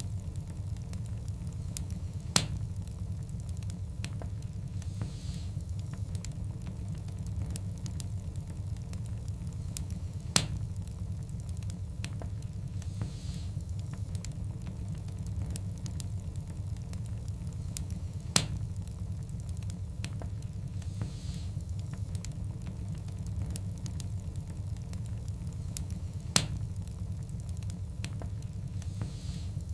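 Log fire burning in a fireplace: a steady low rumble with fine crackling throughout and a sharp, loud pop about every eight seconds, four in all, with a brief hiss recurring on the same eight-second cycle.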